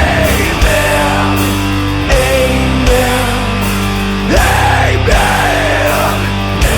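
Heavy metal music: a melodic lead line over a steady drum beat.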